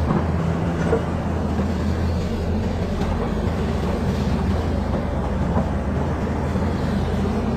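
Caterpillar bulldozer's diesel engine running steadily under load, a deep even drone with a clattering mechanical noise over it.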